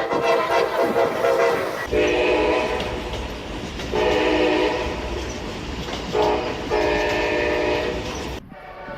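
Amtrak train air horn sounding a chord in the grade-crossing pattern, long, long, short, long, over the low rumble of the passing train. Before it, about two seconds in, a blast from another horn cuts off.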